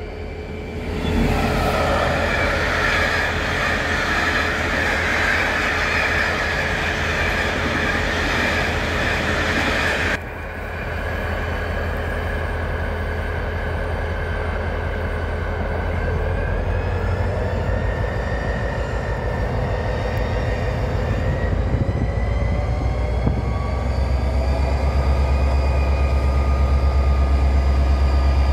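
Train noise rolls past for about ten seconds and then drops off suddenly. After that comes the diesel engine of the ex-DSB MZ-class locomotive 1407: a deep, steady throb with a faint rising whine, growing louder as the locomotive creeps closer.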